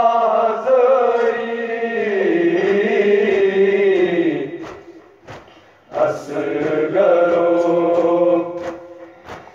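Chanted noha lament: a voice drawing out long, wavering sung phrases without clear words. One phrase fades out about four and a half seconds in, and the next begins about a second and a half later.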